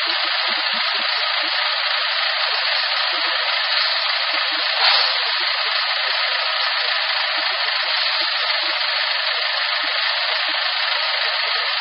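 Steady hissing whir of the Dongfeng hook-lift garbage truck's engine-driven hydraulic system while the hook arm lowers the tipped bin, with a brief louder tick about five seconds in.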